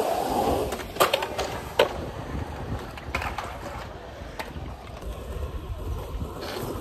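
Skateboard wheels rolling on concrete with a steady low rumble, broken by a few sharp clacks of boards striking the ground, the loudest about one and two seconds in.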